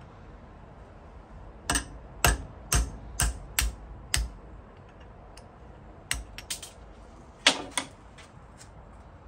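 Hammer tapping a steel punch against the pivot pin of a jeweler's hand vise, driving the pin out. There are six sharp metallic strikes about half a second apart, then a few lighter clicks and two more strikes near the end.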